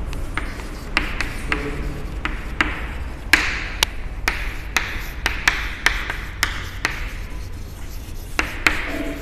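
Chalk writing on a blackboard: many sharp taps at uneven intervals as the chalk strikes the board, with scratchy strokes between them. A low steady hum runs underneath.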